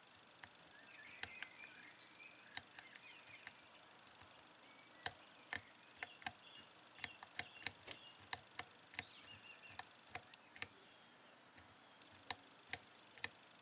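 Sharp, irregular clicks of a four-digit combination lock's number dials being turned notch by notch while the lock is picked. The clicks are sparse at first, come in a quick run through the middle, then thin out again.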